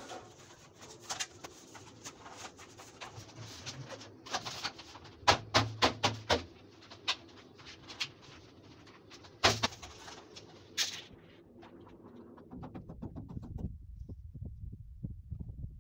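Hammer tapping PVC wall panels into place: a quick run of sharp knocks about four seconds in, then single knocks spaced out until about eleven seconds in.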